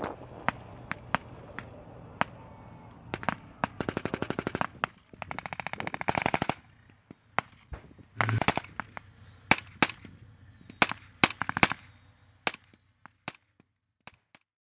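Rifle fire, with blanks fired from British Army rifles fitted with yellow blank-firing attachments: single sharp shots at irregular gaps, broken by two rapid automatic bursts about a third of the way in. The shots thin out and stop shortly before the end.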